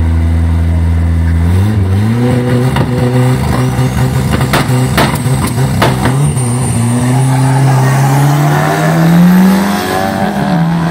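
Drag cars revving hard on the start line, then launching and accelerating away, the engine note climbing steadily before dropping back near the end as a gear changes. A few sharp cracks come a little past the middle.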